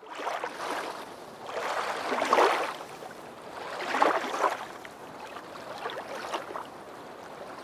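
Water washing and lapping in repeated surges, each swelling and fading over about two seconds.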